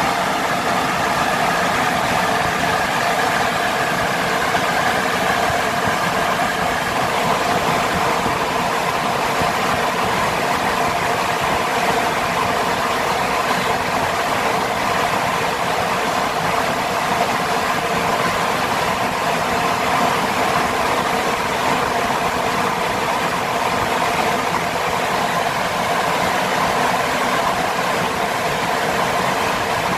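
An 18-inch axial fan with a 750-watt, 1400 rpm electric motor running steadily at full speed: an even rush of air with a constant whirring hum of several steady tones.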